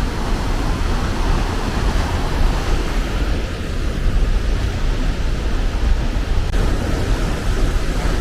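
Waterfall and rushing creek water making a steady, loud noise, with a deep low rumble under it.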